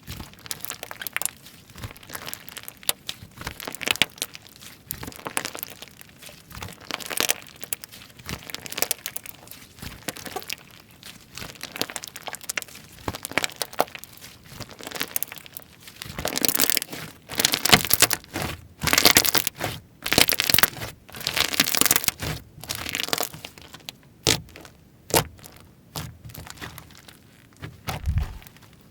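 Hands playing with slime, making a dense run of crackling and clicking, with louder, longer squishing bursts about two thirds of the way through.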